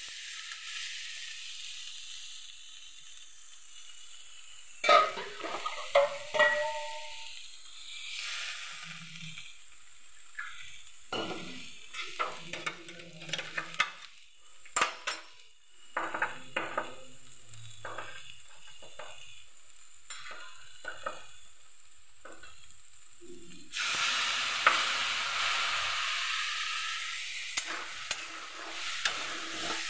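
Potato and jackfruit pieces sizzling in oil in a metal kadhai while a metal spatula stirs them, scraping and clinking against the pan with many short sharp strokes through the middle. The sizzle grows louder near the end.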